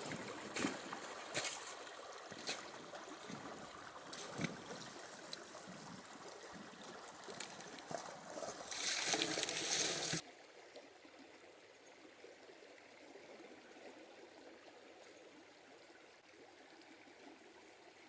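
Creek prospecting work: gravel clinks and knocks over running water, then a louder rushing wash of water for a second or so. It cuts off suddenly to the faint steady flow of the creek.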